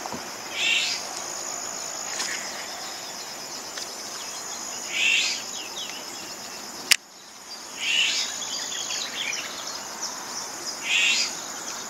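Steady high-pitched chirring of crickets or other insects. A short call, falling in pitch, repeats four times about every three seconds, and a single sharp click comes about seven seconds in.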